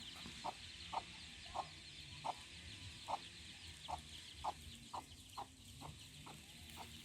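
A chicken clucking: short single clucks repeated roughly every half second, faint, over a steady high chirring in the background.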